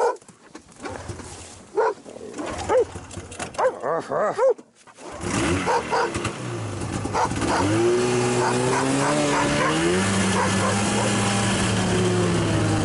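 A dog barks several times. About five seconds in, a Yamaha snowmobile's engine starts, revs up in rising glides as the machine pulls away, then settles into a steady run, with the dog still barking over it.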